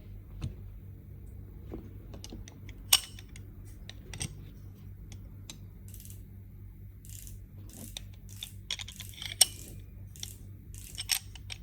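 Scattered sharp metallic clicks and clinks of hand tools and brake parts being handled, the loudest about three seconds in and again near nine seconds, over a steady low hum.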